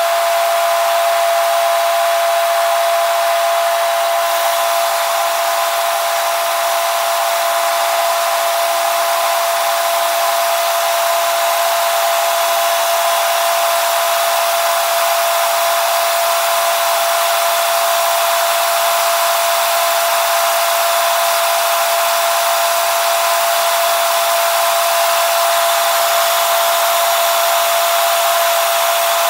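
Helicopter in flight, heard from inside the cabin: a loud, steady rush of engine and rotor noise with a constant high whine running through it.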